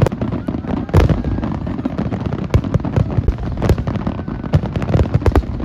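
Fireworks bursting in a dense, irregular barrage of bangs and crackles over a continuous rumble, with the loudest bang about a second in.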